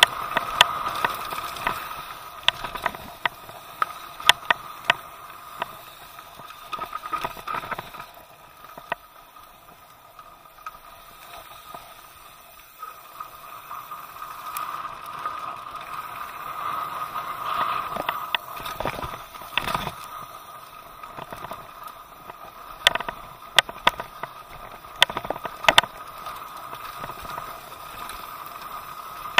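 Mountain bike riding fast down a dirt and gravel trail: a steady rush of tyre and wind noise, broken by sharp clacks and rattles from the bike hitting bumps, in clusters near the start and again about three-quarters of the way through.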